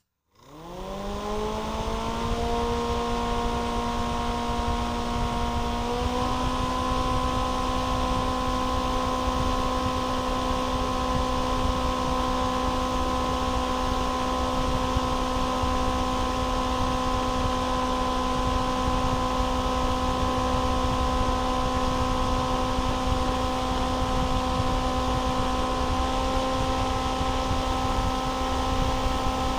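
Small DC motor driving the fan blade of a homemade table-fan jet engine. It starts and spins up within a second or two to a steady high whine with rushing air. Its speed steps up about six seconds in and a little again near the end.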